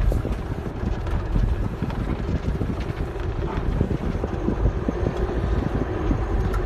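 Motorhome driving slowly over a badly potholed road: a steady low rumble of engine and tyres with frequent knocks and rattles as it jolts over the holes.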